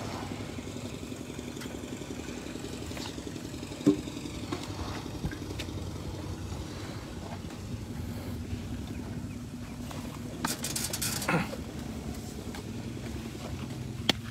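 An engine idling with a steady low hum. A sharp knock comes about four seconds in, and a short burst of scraping noise a little after ten seconds, as elephants feed right at the microphone.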